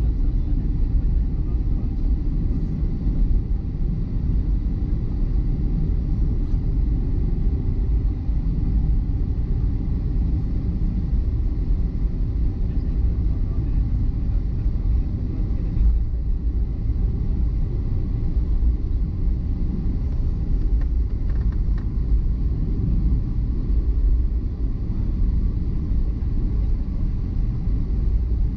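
Steady low rumble inside the cabin of a Boeing 737-400 taxiing, its CFM56 turbofan engines running at idle and its wheels rolling over the pavement, with a faint steady engine whine above the rumble.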